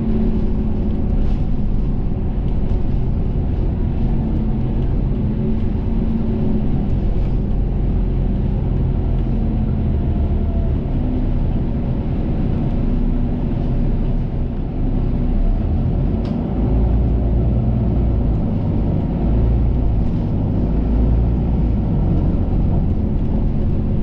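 Cabin noise inside a moving KMB double-decker bus: a steady low rumble of engine and road noise with a wavering engine hum, heavier for a few seconds past the middle.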